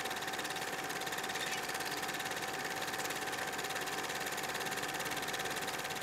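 Super 8 film projector running: a rapid, even mechanical clatter of the film advancing, over a steady motor hum.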